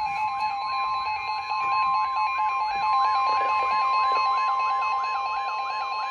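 Emergency Alert System attention signal: a loud, steady two-note alert tone, with a warbling sweep rising and falling about three times a second over it, announcing a warning broadcast.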